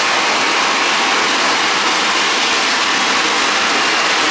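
CO2 jet machine firing a blast of liquid CO2 through its high-pressure valve and nozzle: a loud, steady, rushing hiss held at an even level.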